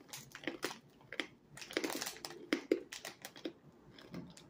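Close-up crunching of hard pork cracklings being chewed: an irregular run of sharp crunches, several a second.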